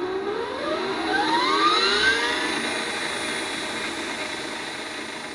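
A whirring, motor-like whine that rises in pitch over about two seconds, then holds steady and slowly fades.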